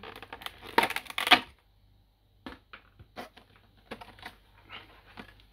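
Clear plastic blister packaging being opened: a dense run of crackling and clicking over the first second and a half, then a short pause, then scattered light clicks and taps as the plastic tray and model parts are handled.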